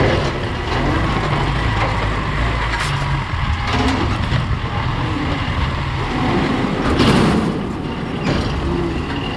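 A vehicle engine running steadily, with a louder swell of noise about seven seconds in.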